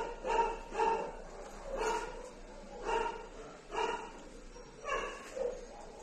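A dog barking repeatedly: about eight short barks with brief, uneven pauses between them.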